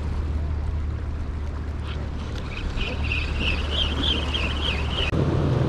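Steady low rumble of wind and sea surf. From about two and a half seconds in, a high-pitched warbling bird call wavers up and down for under three seconds.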